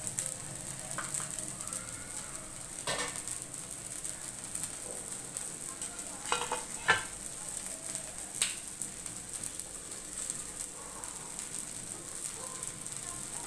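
Rava (semolina) dosa frying in oil in a pan, a steady sizzle as it crisps, broken by a few short sharp clicks, the loudest about seven seconds in.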